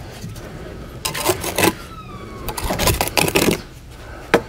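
Gritty scraping and clicking of a veneer stone being shimmied and pressed into its mortar bed against the scratch coat, in two short spells, with a brief falling squeak between them and a few clicks near the end.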